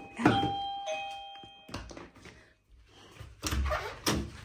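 Two-tone electronic doorbell chime ringing ding-dong: a higher note, then a lower one that fades out. A couple of clunks and some rustling follow about three seconds in.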